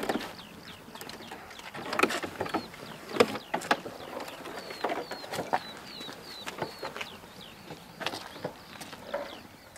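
Small birds chirping repeatedly in quick short calls, with a series of sharp clicks and knocks from hands working on the model jet's airframe as it is taken apart.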